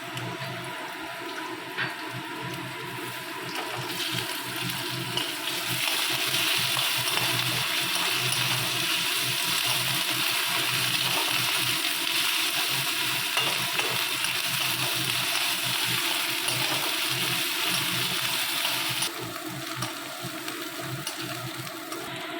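Fried onions and garlic paste sizzling in hot oil in a kadai. The sizzle grows louder about five seconds in and drops away abruptly near the end.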